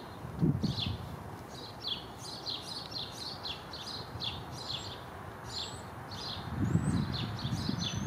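Small songbirds chirping, a steady run of short, high, down-slurred chirps several times a second, with a thin higher whistle near the end. Low rumbles of wind on the microphone come about half a second in and again over the last second and a half.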